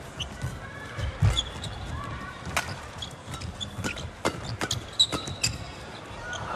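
Badminton rally: a string of sharp shuttlecock hits off rackets at irregular intervals, with short shoe squeaks on the court and a low crowd hum underneath.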